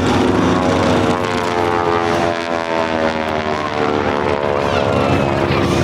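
Propeller-driven airplane flying past, its engine drone sliding down in pitch as it goes by.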